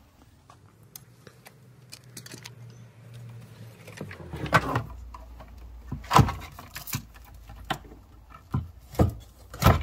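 Hard plastic clicks and knocks as an e-bike battery pack's casing is handled and pulled apart, with faint clicking at first and five sharp knocks in the second half.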